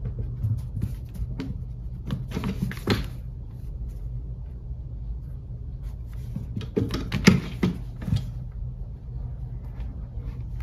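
Scuffling, tapping and knocking of a cat pouncing and rolling about on a hard wooden floor as it plays with a toy mouse. The sounds come in two flurries of quick knocks, a couple of seconds in and a louder one about two-thirds through, over a steady low hum.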